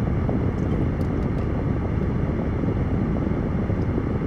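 Steady low rumble of a car heard inside the cabin, with a couple of faint clicks about a second in.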